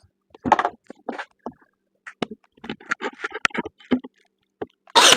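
Wooden birdhouse parts knocking and shifting as they are handled and lined up, with scattered light clicks and taps, then a brad nailer fires once near the end with a short, sharp burst.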